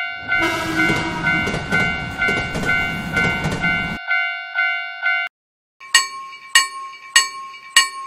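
Japanese railroad crossing warning bell ringing its steady kan-kan about twice a second while a train passes with a rush of noise for about four seconds; the bell stops about five seconds in. After a short gap a second crossing bell, pitched differently, starts ringing at a slightly slower pace.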